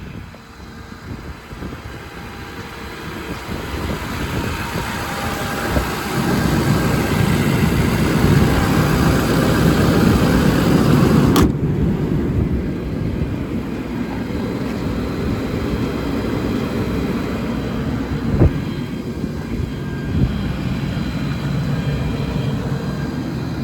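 Diesel truck engine running steadily. It grows louder over the first few seconds and stays loudest for about five seconds before dropping back after a sharp click. There is a single knock later on.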